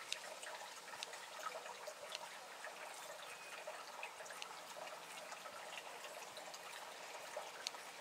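Kitchen scissors snipping anise hyssop leaves: a few faint, scattered clicks over a steady low hiss.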